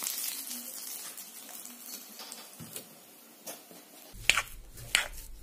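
Hot oil from a kadhai sizzling as it is poured over mashed potatoes and onions, the hiss dying away over about three seconds. Two sharp metal clinks follow near the end.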